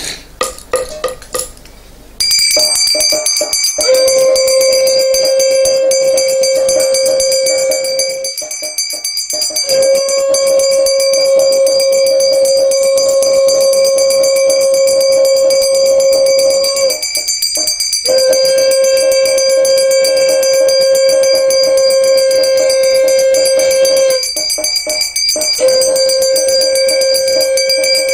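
A conch shell (shankha) blown in long, steady, single-note blasts with short breaks for breath, over a hand bell and a metal gong beaten rapidly with a stick, as in puja arati. The bell and gong start about two seconds in, and the conch joins a couple of seconds later.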